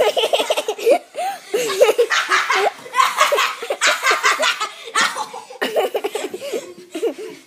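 High-pitched laughter in quick, choppy bursts, with breathy gasps between them.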